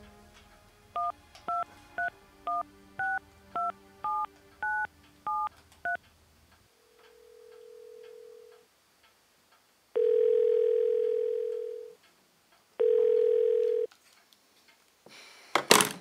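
Mobile phone keypad tones as ten digits are dialled, short two-tone beeps about twice a second. Then a steady low telephone line tone sounds three times, faint at first and then loud, about two seconds and one second long. Near the end a sharp knock as the phone is set down on the wooden table.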